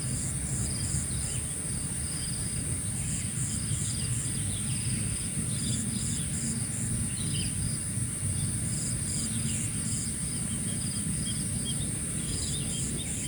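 Outdoor morning ambience: insects, crickets among them, drone steadily at a high pitch, with groups of short pulsed chirps coming back every few seconds. A few faint bird calls and a low background rumble run underneath.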